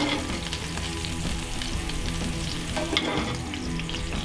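Onions sizzling in a cast iron skillet, with metal tongs clicking against the pan at the start and again about three seconds in.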